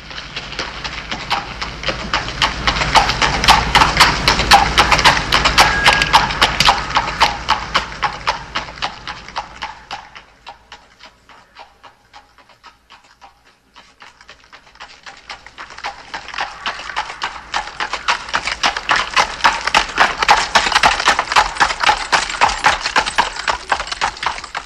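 Galloping horse hoofbeats from an electronic keyboard's sound-effect voice: a rapid clatter of hooves that swells up and fades away, then swells up and fades again.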